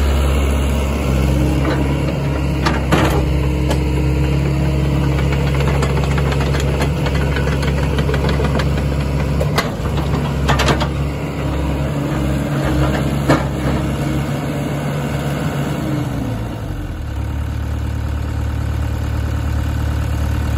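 SANY SY75C crawler excavator's diesel engine idling steadily, with a few sharp clicks over it; the engine note drops slightly about three quarters of the way through.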